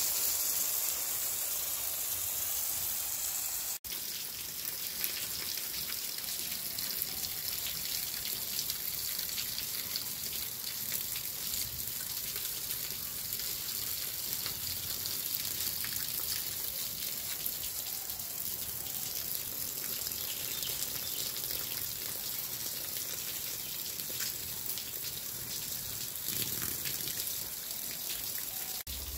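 Impact sprinkler spraying water for the first few seconds, then, after a sudden break, water dripping and pattering steadily off a roof edge, with many small drip ticks over a steady hiss.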